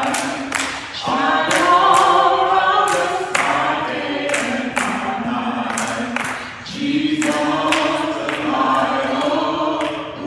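Group of voices singing a gospel song together, with hand claps keeping a steady beat. The singing dips briefly about two thirds of the way through.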